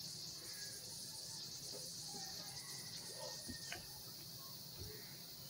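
Quiet room tone: a steady high hiss, with a few faint small knocks about three and a half seconds in.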